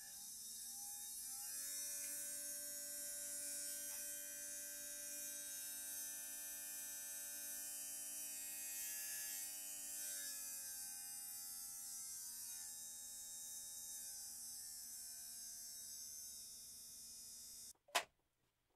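Small brushed DC drill motor in a homemade magnetic stirrer running with a steady whine. It spins up over the first couple of seconds, and its pitch drops slightly around the middle as its supply voltage is turned down on the regulator board. The motor cuts off abruptly near the end, followed by a single sharp click.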